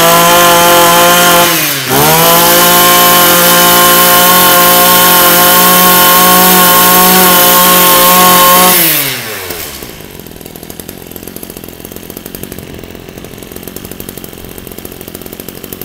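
Ryobi EKK-2620 26 cc two-stroke brush cutter engine revving high. It eases off briefly about two seconds in, then is held high until about nine seconds in, when it drops back to a steady idle.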